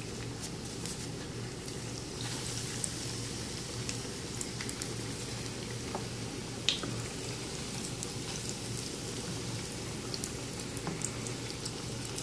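Breaded potato balls frying in hot oil in a frying pan: a steady bubbling sizzle dotted with small crackles, with one sharp click near the middle. The sizzle thickens about two seconds in as a fresh, uncooked ball goes into the oil.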